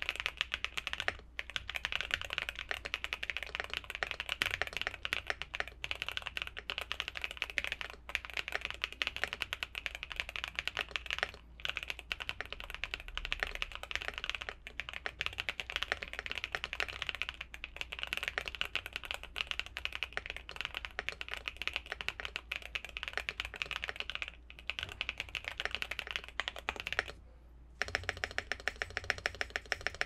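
Fast typing on a QK65 mechanical keyboard with Gateron Cream Soda linear switches, an FR4 plate and PBT Cherry-profile keycaps, gasket-mounted, fully foamed and tape-modded: a dense run of keystrokes with a few brief pauses. Near the end, after a short break, the strokes come in a more even, rapid run.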